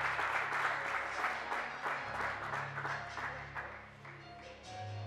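Applause, a dense patter of many hands clapping, thinning out and fading over the last two seconds. Quiet background music plays underneath.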